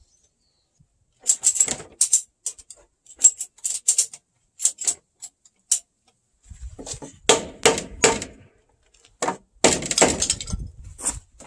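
Hand-tool work on pine timber: a run of short, sharp scraping strokes on wood, then several heavier wooden knocks and clatter in the second half.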